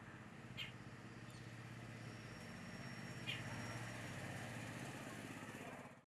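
A steady low motor hum, with two short high bird chirps, the first about half a second in and the second about three seconds later; the sound fades out at the end.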